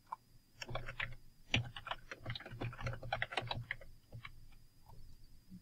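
Typing on a computer keyboard: a quick run of keystrokes starting about half a second in, thinning to a few single key presses near the end.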